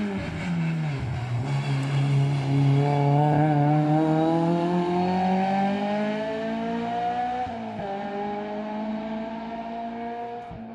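Race car engine on a hill climb: the revs drop as it brakes into a hairpin, then it accelerates away with the pitch rising steadily for several seconds. There is a quick dip at a gear change about three-quarters of the way through, then it pulls again and fades as it climbs away.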